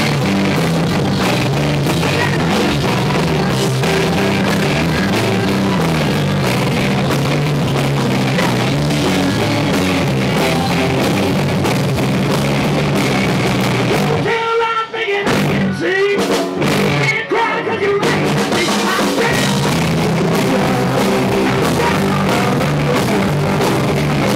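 Live rock band playing loud: distorted electric guitars over a driving drum kit. About fourteen seconds in the band drops out for a few seconds, leaving a single pitched line, then comes back in full.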